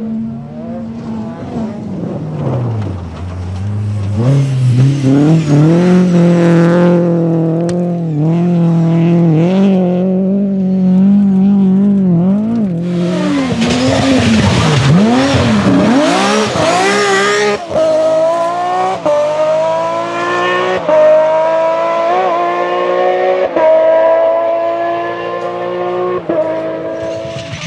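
BMW rally car engine at high revs: the pitch drops and picks up again, holds steady for several seconds, then a loud rush of tyre noise comes as the car passes close, and it accelerates away, climbing through several gear changes.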